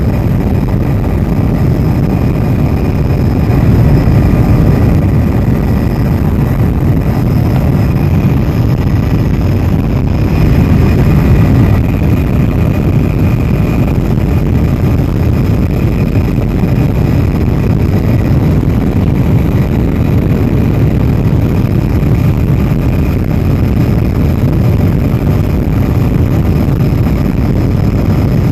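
Helicopter in steady cruising flight, its rotor and engine making a loud, even drone heard from inside the cabin, with a faint steady high whine over it.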